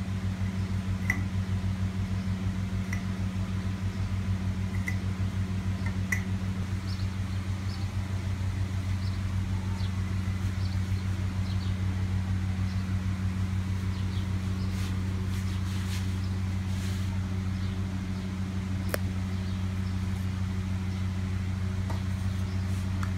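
A steady low hum, like a motor or electrical appliance running, with a few faint light clicks.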